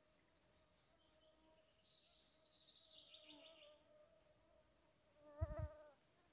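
Faint steady whine of a flying insect, one wavering high tone. A bird sings a short trill of falling notes about two seconds in, and near the end the insect's buzz swells briefly close by with a low thump.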